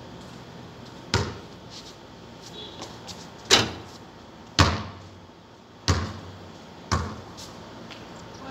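Basketball shooting on a concrete court: the ball hits the backboard and rim and bounces on the concrete, making five sharp thuds spread one to two seconds apart.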